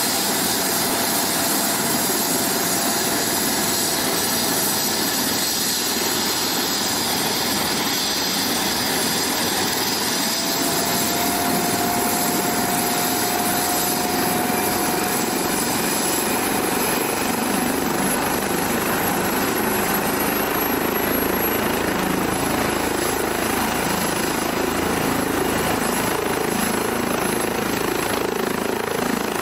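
Airbus EC135 trauma helicopter running on the ground, its turbines and turning main rotor giving a steady, loud rush with a faint whine that rises slightly about ten seconds in.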